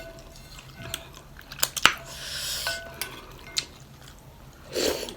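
Close-up eating of thenthuk noodle soup: chewing, with a spoon clinking against the bowl in short ringing taps and two sharp clicks a little under two seconds in, followed by a second-long noisy rush.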